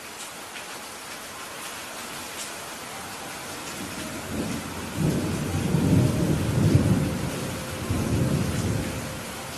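Steady rain hissing, with a thunder rumble that builds about halfway through, rolls in several swells, then dies away near the end.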